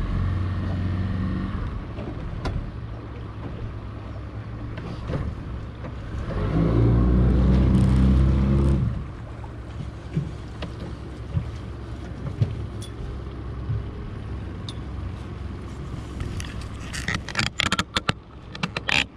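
A boat motor running steadily at low speed, growing louder for about two seconds around seven seconds in. Near the end comes a quick run of sharp clicks.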